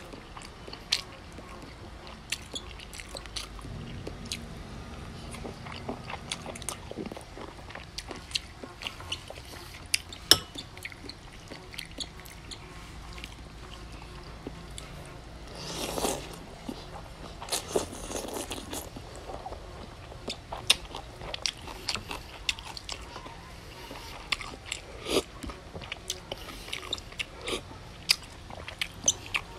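Close-up eating sounds of a man eating goat noodle soup: chewing and wet mouth smacks, heard as many sharp short clicks, with a longer slurp of noodles about halfway through.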